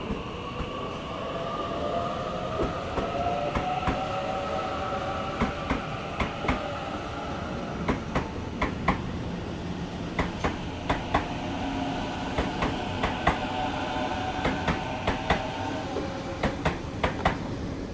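Waratah A-set double-deck electric train departing: a traction whine of several tones gliding slowly over a rumble, with sharp wheel clacks over rail joints through most of it. Near the end a second train draws in alongside.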